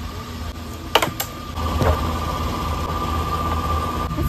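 A machine runs steadily, a low hum with a high whine, growing louder about a second and a half in. Two sharp clicks come just before that.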